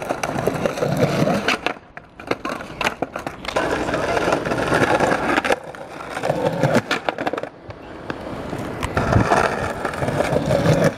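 Skateboard wheels rolling on rough concrete in several passes, with a few sharp clacks of the board between them.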